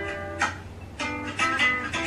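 Guitar music: plucked and strummed chords, with strokes about half a second in and a run of them from about one second on.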